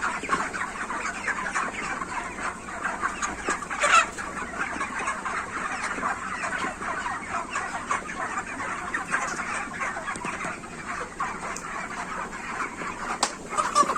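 A large flock of broiler chickens clucking and chirping all at once, a dense, unbroken chatter of many overlapping calls. A sharp click stands out about four seconds in, and another comes near the end.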